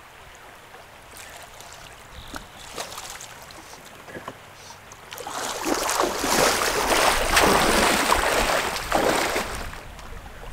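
Shallow river running softly, then about five seconds in a few seconds of loud splashing and sloshing water while a hooked trout is played to the net.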